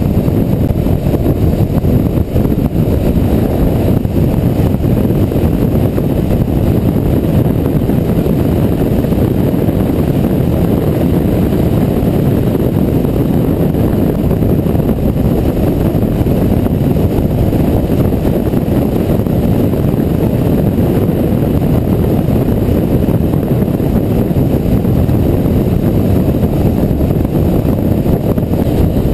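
Wind rushing over the microphone of a camera mounted on a moving motorcycle, mixed with the bike's engine and road noise: a steady, dense low rumble at cruising speed.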